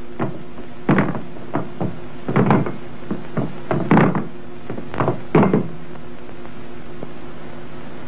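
Karate practitioners training: about a dozen short, sharp knocks and thuds in quick, uneven succession. They stop about six seconds in, leaving a steady low hum.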